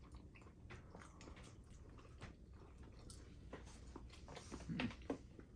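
Faint chewing and mouth clicks of people eating chili dogs, with a short hum-like voiced sound a little before the end.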